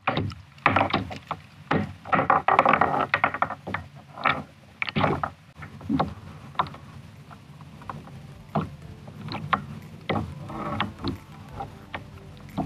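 Handling noise on a plastic sit-on-top kayak as a caught bass is unhooked and released: irregular sharp clicks and knocks. They come thick and fast for about the first five seconds, then more sparsely.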